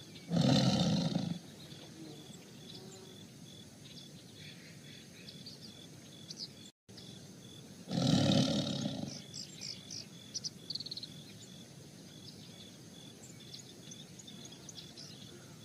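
Tiger roaring twice, each roar about a second long: once right at the start and again about eight seconds in. Small birds chirp faintly in between.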